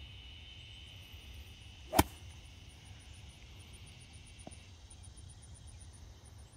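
A golf club swinging and striking the ball off the fairway turf about two seconds in: a brief swish into one sharp crack. Insects buzz steadily high in the background.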